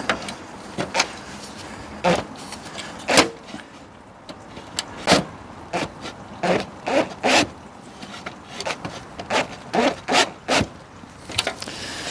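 Cordless drill fitted with a flexible-shaft extension, run in many short bursts as it drives a screw into a recycled-plastic frame.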